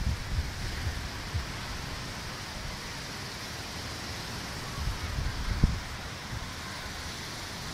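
Steady hiss of surf breaking on a beach, with wind buffeting the microphone in low thumps now and then, the sharpest about five and a half seconds in.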